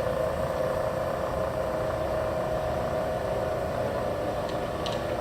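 Bridgeport 1-1/2 HP vertical milling machine head running steadily in low range, on its back gears, with a steady whine and a little gear-train noise from the back gears, which is normal and no fault.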